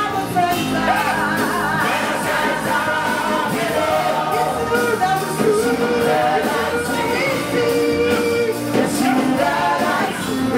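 Live gospel praise music: several singers on microphones singing over a band with a steady beat.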